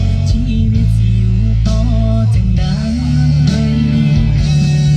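A Thai-language song played loud through homemade speaker cabinets during a sound test, with heavy deep bass under a plucked-string melody.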